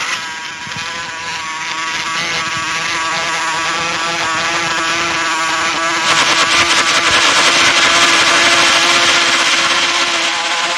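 Opening of an electronic breakcore track played from cassette: a dense buzzing synth drone holding a steady pitch, building up and turning harsher and noisier about halfway through.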